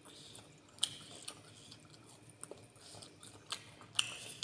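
Close-up chewing of mendoan, battered fried tempeh, with a few sharp crisp crunches; the loudest come about a second in and near the end.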